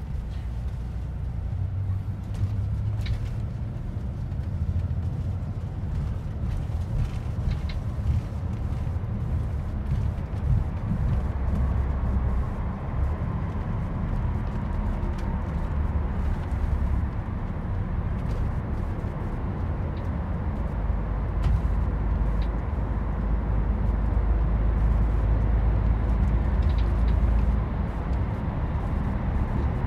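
Steady low engine and road rumble heard from inside a moving vehicle, growing a little louder near the end.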